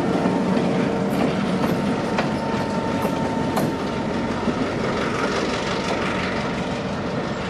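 Southern Pacific EMD GP9 diesel locomotive rolling past close by, its 16-cylinder two-stroke engine running under a steady rumble of wheels on rail. Sharp clicks come from the wheels over rail joints, several of them between about one and four seconds in. The last of the horn fades out at the very start.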